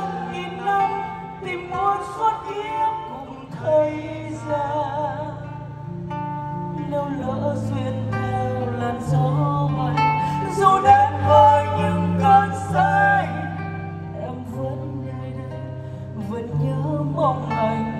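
Live ballad: a woman singing into a microphone with vibrato over band accompaniment of guitar and bass.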